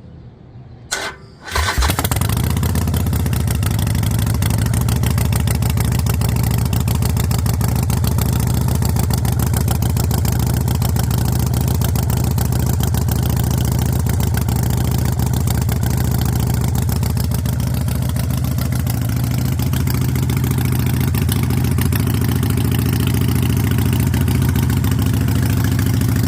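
Harley-Davidson Iron 883's air-cooled V-twin with Vance & Hines Shortshots exhaust being started: a brief crank about a second in, then it catches and runs loud and steady at idle.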